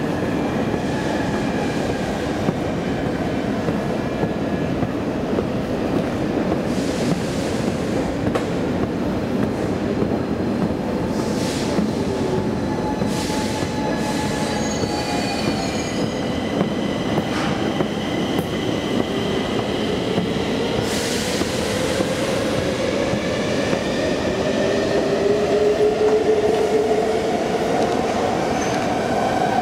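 A metro station escalator running during a ride down, a steady mechanical rumble and rattle. Thin whining tones come and go above it, and one glides steadily upward in pitch over the last several seconds.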